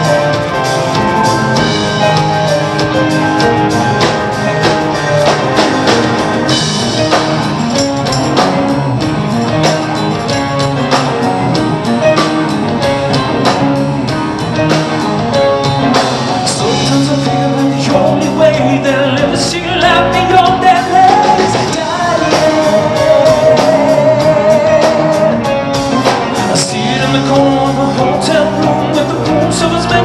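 Rock band playing a song live: electric guitar, bass, keyboards and drums, with a man singing lead.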